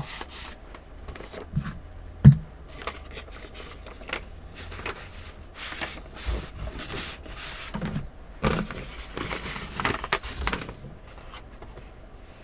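Paper envelope and packaging rustling and scraping as it is handled, with scattered small clicks and one sharp knock about two seconds in.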